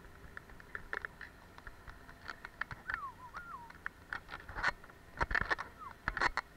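Ski and boot crunching and clicking on hard-packed snow, irregular and busier in the second half. Two short high gliding tones, one about halfway through and one near the end.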